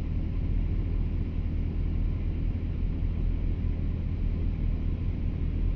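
Excavator's diesel engine running steadily at an unchanging pitch, a low drone.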